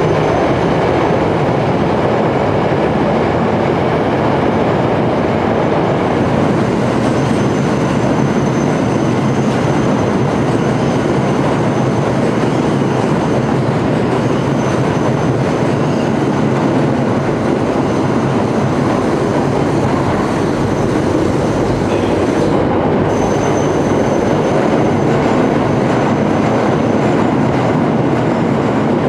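Tokyo Metro Ginza Line subway trains running along the track: a steady rumble of wheels on rails, with a thin high wheel squeal that comes and goes.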